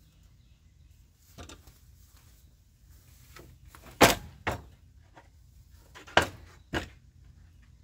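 Rough-sawn cedar slab knocking against the sawhorses and neighbouring boards as it is lifted and flipped over: a faint knock, then two pairs of sharp knocks about four and six seconds in.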